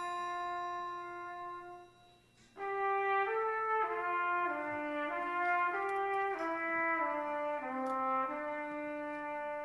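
Brass instrument playing a slow holiday melody: a long held note that fades out, then after a short pause a phrase of sustained, smoothly joined notes stepping mostly downward, ending on a long held note.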